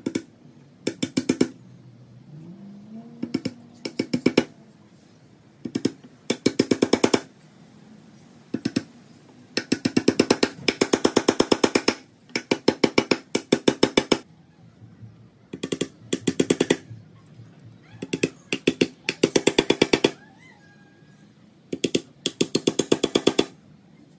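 Claw hammer driving nails into pine boards: runs of rapid, light blows, about ten a second, each run lasting up to a couple of seconds, with short pauses between runs.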